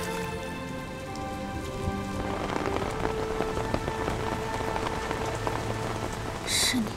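Steady rain pouring down, with soft background music fading out under it in the first two seconds. A short, sharp, bright burst of noise near the end.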